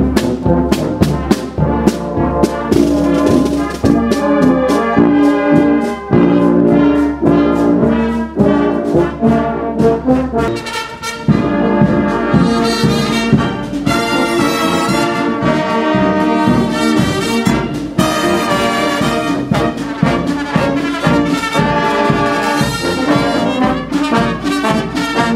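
Marching brass band playing a tune on trombones, trumpets and sousaphone, with a snare drum beating a steady march time. The deep bass notes drop away about eleven seconds in.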